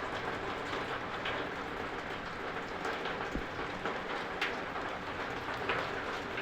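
Steady rain falling, with a few sharper drip ticks standing out.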